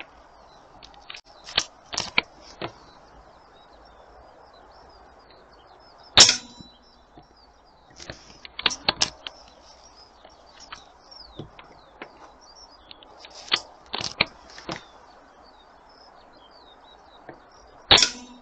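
Two air gun shots with Rangemaster Sovereign pellets, sharp cracks about six seconds in and near the end, with smaller clicks and clacks between them. Birds chirp faintly.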